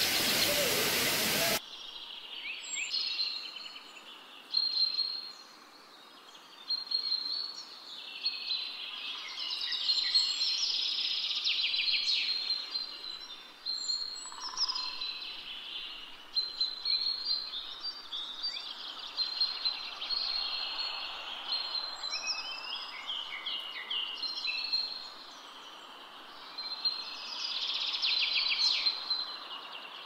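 Small birds chirping and trilling, many short overlapping calls, with a loud burst of hiss in the first second and a half.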